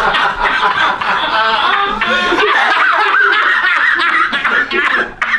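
People laughing hard without a break, stopping abruptly near the end.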